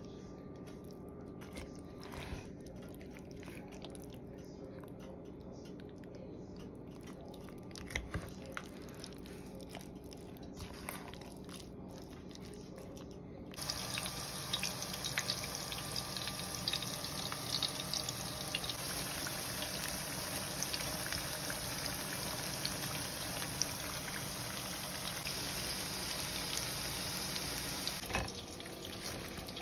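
Vegetable fritters deep-frying in hot oil: a dense crackling sizzle that starts suddenly about halfway through and drops away near the end. Before it, a quieter stretch of steady low hum with a few soft clicks.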